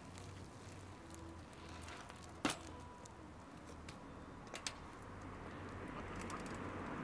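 Flatland BMX bike being ridden on asphalt, giving a few clicks: one sharp click about two and a half seconds in and two softer ones about two seconds later, over a low outdoor background whose noise builds toward the end.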